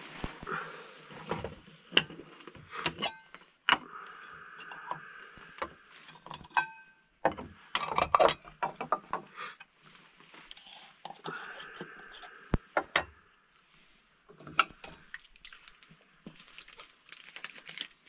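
Metal cookware of a Trangia stove set being handled: repeated clinks and knocks, with one short metallic ring about six and a half seconds in.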